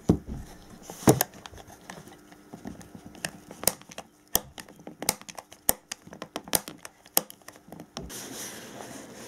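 Fingers handling the plastic rotation-switch parts inside an opened cordless drill housing: irregular clicks, taps and rustles. A steady hiss comes in near the end.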